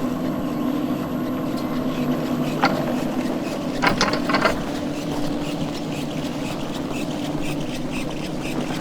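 T-bar ski lift machinery running with a steady, engine-like hum. Sharp clicks about two and a half seconds in, and a quick cluster of rattles around four seconds in.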